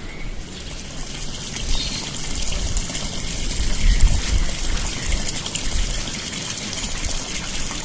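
Water running and splashing steadily as someone bathes, starting just after the opening moment.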